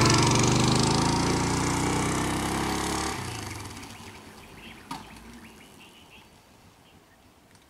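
A vehicle engine running steadily, cutting off abruptly about three seconds in. After it, faint birds chirping and one sharp click near the five-second mark.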